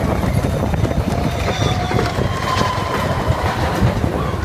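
Big Thunder Mountain Railroad's mine-train roller coaster running along its track: a steady low rumble with rapid clattering of the wheels.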